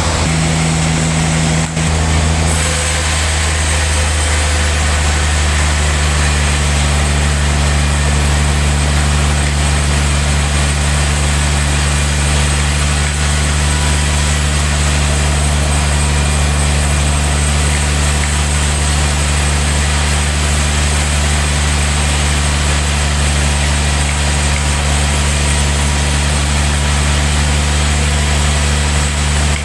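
Industrial log sawmill running as it saws a big log: a steady low drive drone under the hiss of the saw cutting through the wood. The cutting hiss grows louder about two and a half seconds in and then holds steady.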